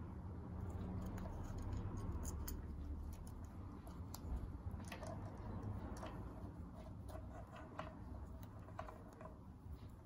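Handling noise from fitting a pickup into a foil-shielded plastic pickguard: scattered light clicks and taps, more of them in the second half, some with a brief ring. A low steady rumble runs underneath.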